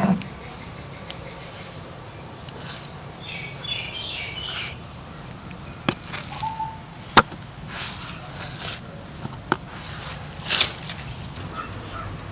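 Steady high-pitched insect drone, with a few sharp knocks and some brief chirps.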